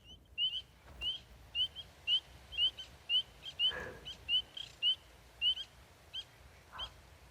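Spring peepers calling: short, high, upslurred peeps repeated about two to three times a second, some in quick pairs.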